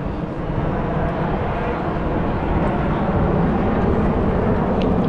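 Airplane flying over: a steady engine roar that grows somewhat louder partway through.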